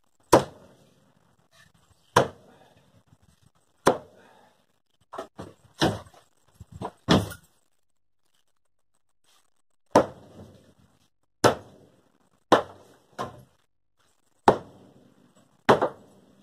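Sharp, heavy whacks of a hand tool striking wooden floor boards and framing to knock them loose, about a dozen blows at uneven intervals with a pause of a couple of seconds midway.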